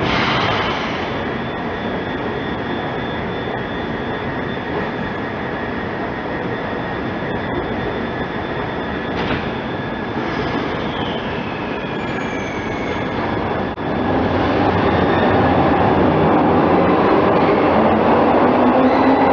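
1977 Metro-Cammell Glasgow Subway train standing at the platform with a steady hum. About two-thirds of the way through it pulls away, getting louder, with a motor whine rising in pitch as it accelerates.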